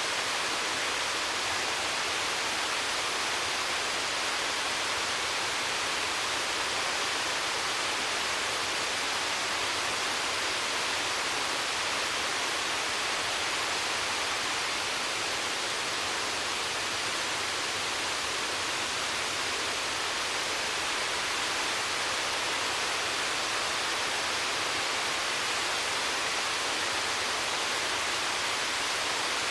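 Waterfall pouring, a steady even rush of falling water with a hissy upper edge and no change throughout.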